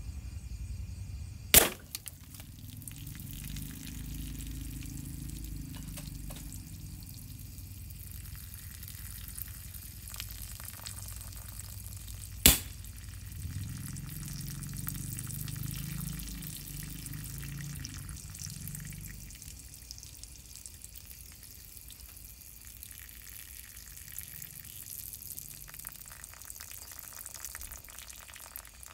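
Two sharp shots from a PCP air rifle about eleven seconds apart. After each one comes a few seconds of liquid pouring and gurgling out of the holed plastic bottle, and it trickles off near the end.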